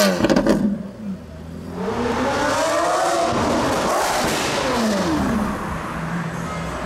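Lamborghini Aventador's V12 through a Capristo exhaust. Its pitch falls away with a few crackles at first, then it accelerates with a rising pitch about two seconds in, eases off, and settles into a steady run after another falling sweep near the end.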